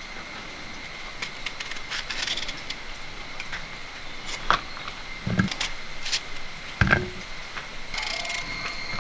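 Raw green mango being cut with a large hand-held knife, with a few sharp knocks in the second half.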